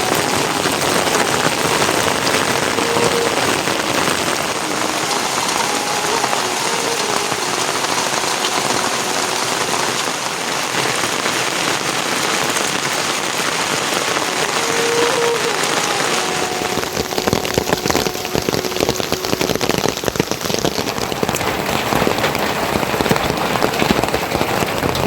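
Steady rain falling and pattering densely on surfaces. About two-thirds of the way through, the patter grows denser and heavier.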